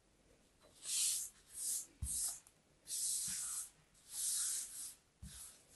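Kinetic sand being pressed and worked by fingers in a plastic mold: a series of about six short hissing rustles, with a couple of soft low thumps.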